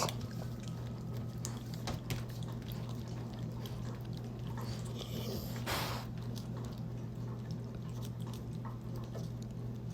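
A pet licking and chewing a squeeze-tube treat, with faint wet smacking ticks over a steady low hum, and a brief hiss near the middle.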